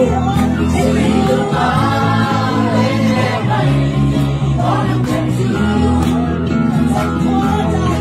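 A group of voices singing a Mizo song together over a steady instrumental accompaniment.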